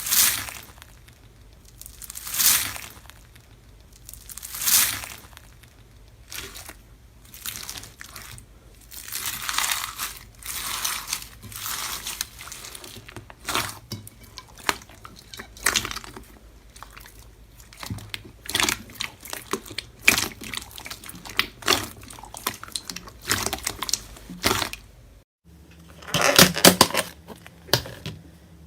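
Slime being pressed, squeezed and stretched by hand: wet squishing swells every couple of seconds at first, then dense crackling and popping, with a loud crackly burst after a short break near the end.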